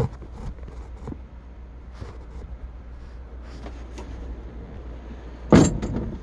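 A steady low rumble inside a minivan cabin, with scattered small clicks and knocks. Two loud, sharp thumps come near the end.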